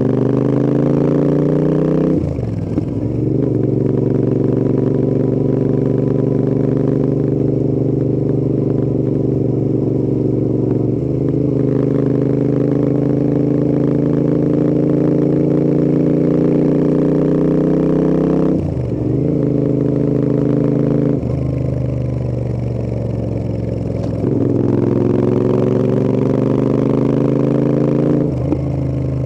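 Royal Enfield Interceptor 650 parallel-twin motorcycle engine pulling under load. Its note climbs steadily in pitch, then drops suddenly at each of several gear changes. Past the middle it holds lower and eases off for a few seconds before pulling up again.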